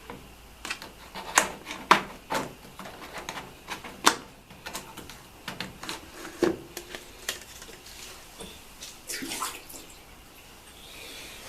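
Residual water being drained from a washing machine, splashing and spattering in irregular bursts.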